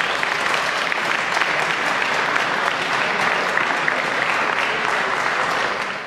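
Crowd applauding steadily, a dense patter of many hands clapping that fades out at the very end.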